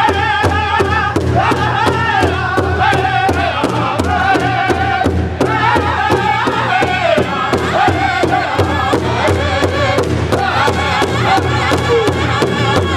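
Powwow drum group singing: several men strike a large hide bass drum in a steady, fast unison beat while singing a high-pitched, wavering chant, with women's voices joining from behind.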